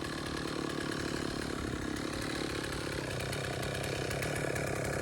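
Stihl 066 two-stroke chainsaw running steadily at an even, moderate level.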